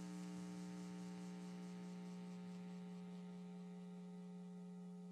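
Faint, steady electrical mains hum from the audio system: one low tone with a row of overtones above it, over a light hiss.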